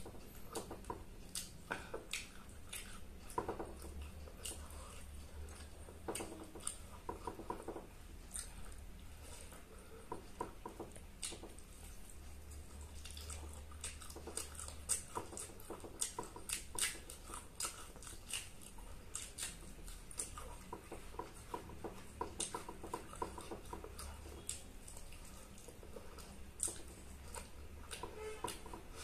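Chewing and mouth smacking of a person eating rice and chicken by hand, with irregular soft clicks and squelches as fingers mix rice on a banana leaf.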